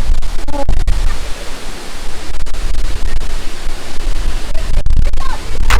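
Waterfall's falling water, a loud steady rush with a heavy low rumble.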